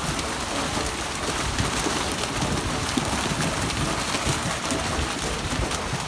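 Steady rain-like pattering of splashing water and flapping fish, as freshly harvested fish are scooped from a fish cage into a boat's hold.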